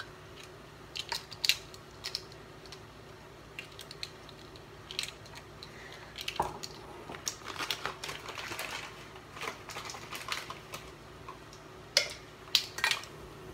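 Light clicks and taps of kitchen utensils against containers, scattered through, with a denser stretch of clinking and scraping in the middle.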